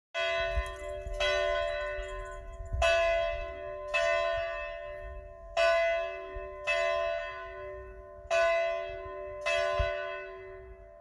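A single church bell swinging and ringing, about eight strikes at the same pitch, each one ringing on and fading before the next, in an uneven alternating rhythm roughly every one to one and a half seconds.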